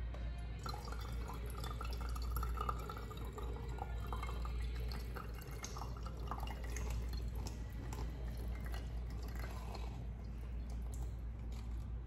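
Boiled coffee poured from a saucepan in a thin steady stream into a reusable mesh coffee filter on a mug, trickling through the filter; the pour starts about half a second in.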